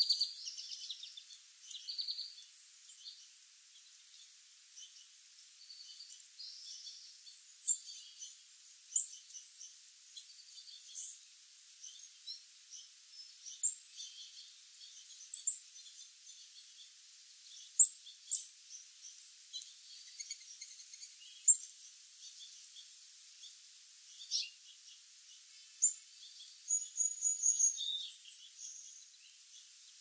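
Small songbirds chirping: short, high calls every second or two, with a longer run of twittering calls near the end.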